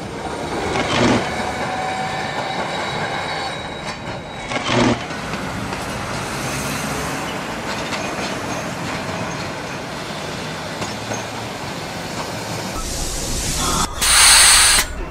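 Electric tram running along street rails, a steady rumble and rattle of wheels with a couple of knocks. Near the end comes a loud rush of hiss lasting about a second, as the tram reaches a stop.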